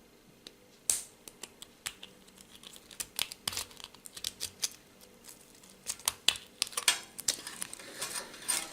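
Lock pick and tension wrench working the pins of a practice padlock: small metallic clicks and scrapes, sparse at first and growing much busier from about three seconds in.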